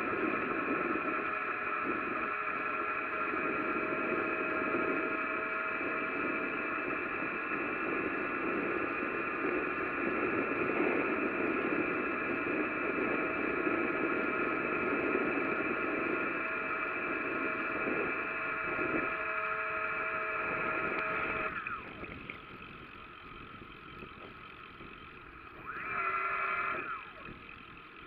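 Bicycle riding noise: a steady hum of tyres on the road with wind rush. About 21 seconds in the hum falls in pitch and drops away, and it comes back briefly a few seconds later.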